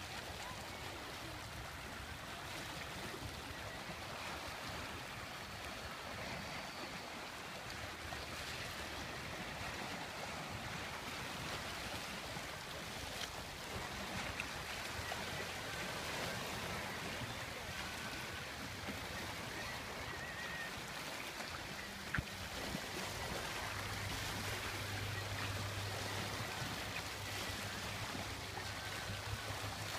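Small waves lapping and splashing against shoreline rocks, a steady wash of water. A low steady hum joins in over the last several seconds, and there is a single sharp click a little before that.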